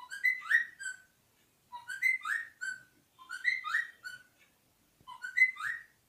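A green pet parrot whistling the same short phrase of clear notes four times over, each phrase about a second long with rising slides between the notes.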